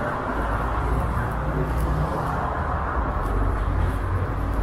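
City street traffic: a steady low rumble with an engine hum underneath.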